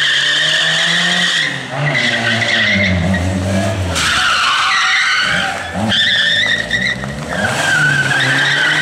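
Peugeot 205 hatchback thrown around cones: its tyres squeal in several long skids, one after another, while the engine revs rise and fall with each turn.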